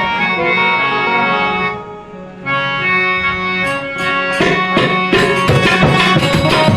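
Harmonium playing held notes in an instrumental passage of a devotional bhajan. It dips briefly about two seconds in, and from about four seconds sharp drum and percussion strokes join it.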